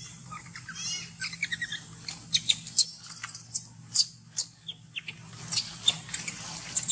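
Baby macaque giving thin, high-pitched squeals that waver up and down, then a run of short, sharp, shrill chirps.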